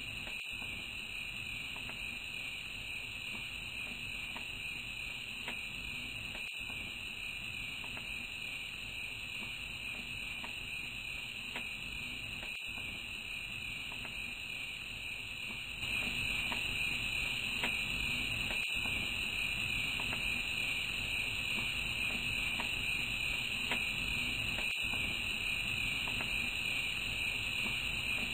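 Night-time crickets chirring in a steady, dense drone, which grows louder a little past halfway, with a brief dip every six seconds or so.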